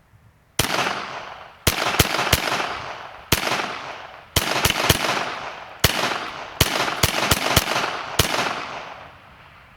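IWI Uzi pistol in .22 long rifle fired semi-automatically, about thirteen shots at an uneven pace, some in quick pairs and triples, each shot trailing a long echo.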